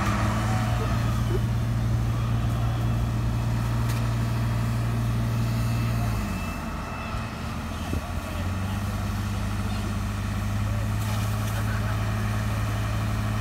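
Fire engine's pump engine running steadily at high revs while it feeds the hose lines. The steady drone drops away for about two seconds around the middle, then picks up again.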